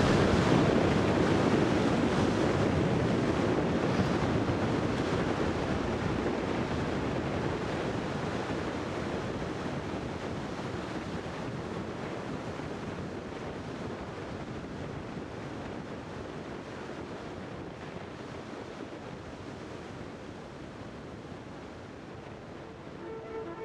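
Ocean surf breaking, with wind buffeting the microphone, slowly fading down throughout.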